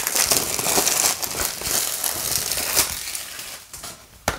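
Thin plastic shrink-wrap crinkling as it is peeled off a Blu-ray case, dying away after about three seconds, with a single sharp click just before the end.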